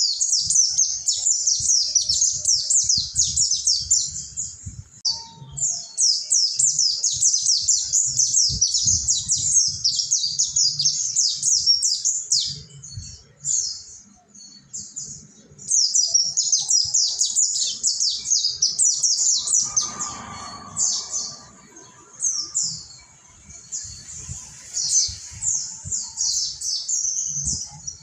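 Mountain white-eye (pleci Monty) singing long, rapid runs of high-pitched twittering notes, broken by short pauses and a sparser stretch about two-thirds of the way in.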